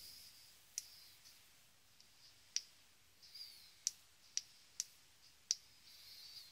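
About six sharp clicks of the BLF Q8 flashlight's side push-button switch, pressed at irregular intervals as the light is turned on and its output changed.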